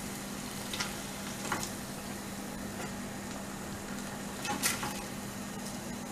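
Batter-coated paneer pieces frying in hot oil in a wok, a steady sizzle, with a few clicks and scrapes of a slotted spoon against the pan as the pieces are lifted out, the loudest just before the five-second mark. A steady low hum runs underneath.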